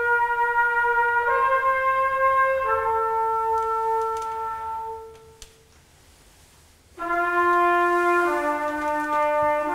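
Solo trumpet playing slow, long held notes that step from one pitch to the next. It fades out about halfway through, and after a couple of seconds of near silence it comes back in on lower notes.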